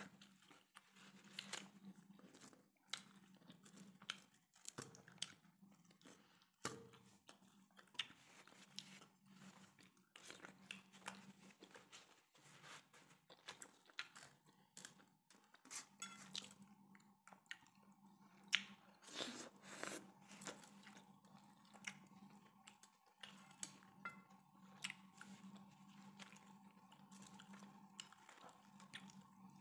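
Faint close-up chewing and crunching of chicken curry and roti, in short irregular clicks, over a faint steady hum.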